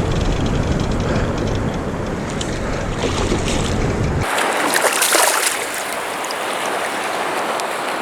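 Wind buffeting the microphone over lake water at the shore. About four seconds in, the low rumble cuts off abruptly, followed by a burst of splashing and then steady rushing water.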